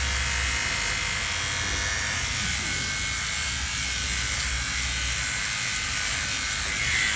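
Electric dog clipper running with a steady hum as it cuts through the dog's coat.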